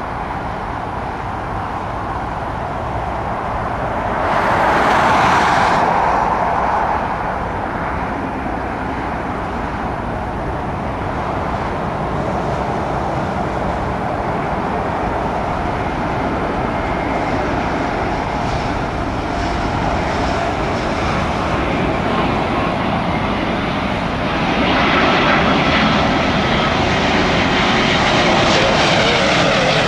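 Airbus A350-1000 on final approach, its Rolls-Royce Trent XWB jet engines roaring steadily and growing louder as it nears. A high engine whine comes in over the roar about two-thirds of the way through, and a brief louder rush of noise stands out about four seconds in.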